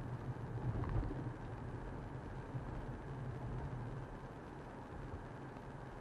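Steady low rumble of a vehicle running, with a brief louder moment about a second in.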